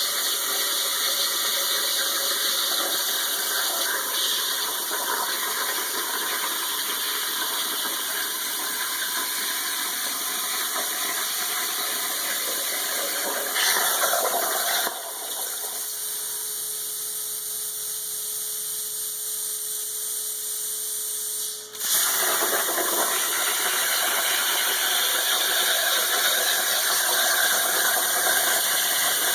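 CNC plasma cutter torch cutting 3/16-inch aluminum: a loud, steady hissing rush. About halfway through the arc stops for roughly seven seconds, leaving a quieter steady hum with a faint tone, then it starts cutting again.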